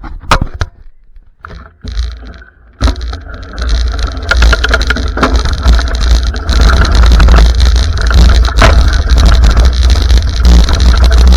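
Loud wind buffeting and rumble on the microphone, setting in about three seconds in after a few knocks, as on a camera moving fast.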